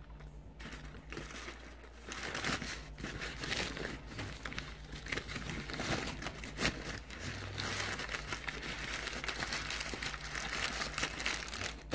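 Paper burger wrapper being crumpled and folded by hand, a dense crinkling that starts about two seconds in.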